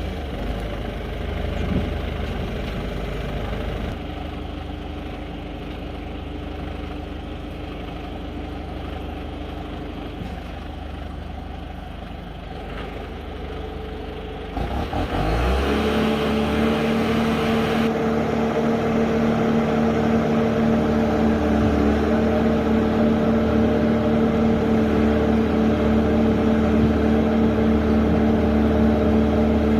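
John Deere 540D skidder's diesel engine running at low revs, then throttled up about halfway through and held at a steady high rev.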